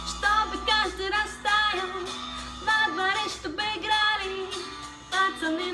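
A woman singing a song, in phrases with short breaks between them.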